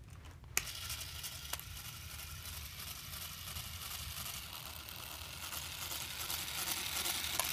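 Small Lego electric motor switched on with a click about half a second in, then whirring steadily as it drives the toy car's wheels through its gears, getting a little louder near the end.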